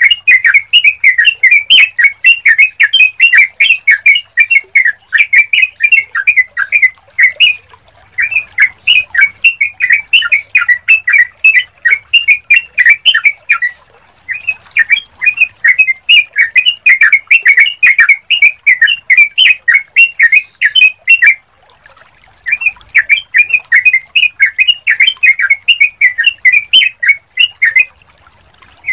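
Yellow-vented bulbul (trucukan) song: rapid, bubbly chattering notes in runs of several seconds, broken by short pauses.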